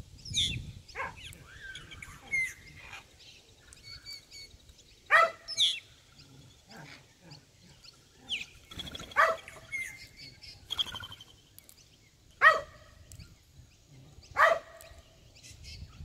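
A dog barking in single sharp barks every few seconds, demanding that its ball be kicked. Birds chirp faintly between the barks.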